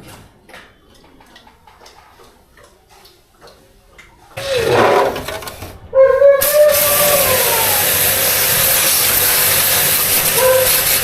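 High-pressure jet pump spraying water: a loud, steady hiss that starts suddenly about six seconds in, with a wavering tone over it, after a few faint clicks and a short pitched sound.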